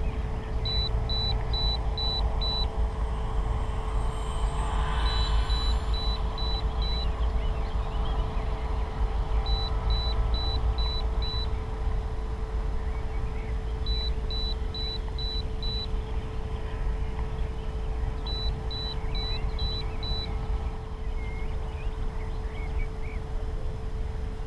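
Wind buffeting the microphone, with a steady hum underneath. A high electronic beeper sounds in groups of five short beeps, repeating about every four to five seconds.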